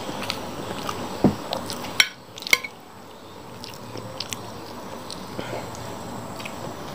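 Close-up eating sounds: a metal spoon clinking and scraping on a glass plate of fried rice, with mouth sounds of chewing. A couple of sharp clinks about two seconds in are the loudest part.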